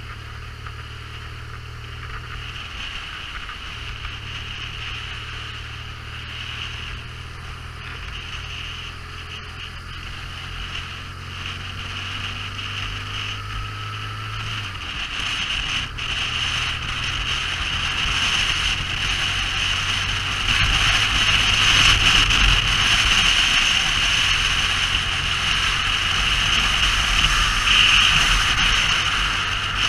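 Motorcycle riding on the road: a steady low engine note with a rush of wind and road noise, which grows clearly louder from about halfway through.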